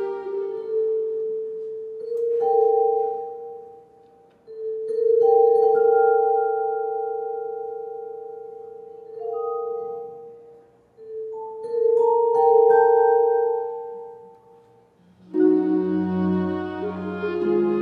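Chamber ensemble playing soft contemporary chamber music: a few long held notes, each swelling and fading, with short near-silent gaps between them. Near the end a fuller, lower chord comes in.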